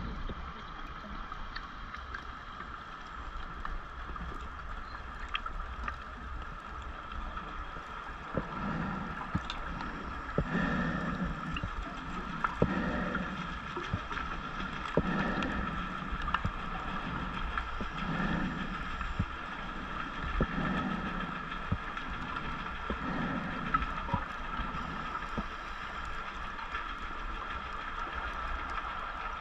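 Underwater sound picked up through a diver's camera housing: a steady faint hum with low gurgling rumbles of scuba exhaust bubbles. The rumbles recur every two to three seconds from about a third of the way in.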